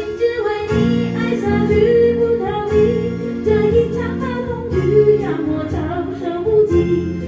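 Pop ballad with a woman singing over backing music.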